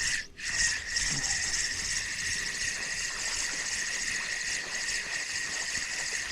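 Steady, shrill insect chorus: one constant high drone over a fine hiss.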